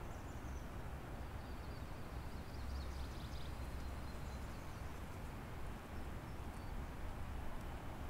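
Steady rushing of a river out of sight, with a low rumble underneath. Faint, short, high bird chirps come here and there, a small cluster about three seconds in.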